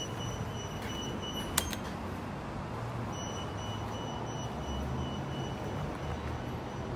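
Steady low rumble of road traffic, with a faint high steady whine that stops about one and a half seconds in at a single sharp click.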